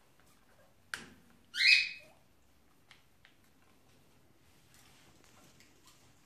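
A cockatiel gives one short, loud call about a second and a half in, just after a sharp splash-like click. Faint splashing and small ticks from the birds bathing in a water tub follow.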